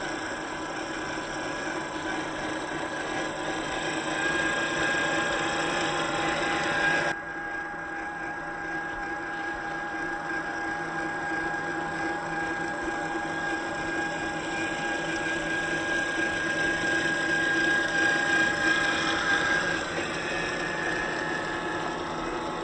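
Electric drivetrain of a 1/10-scale Boom Racing BRX02 RC crawler, its Hobbywing Fusion brushless motor and gears giving a steady whine that swells and eases gently with the throttle as it drives. The sound changes abruptly about seven seconds in.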